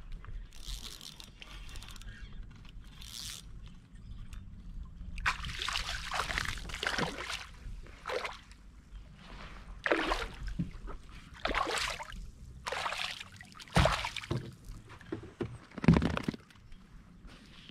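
A hooked fish splashing and thrashing at the surface beside a kayak, in a run of irregular splashes. Near the end come two heavier knocks, the loudest sounds.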